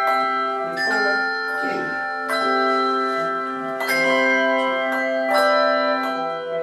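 Handbells played by a handbell choir: bells struck one after another at an unhurried pace, their pitched tones ringing on and overlapping into chords.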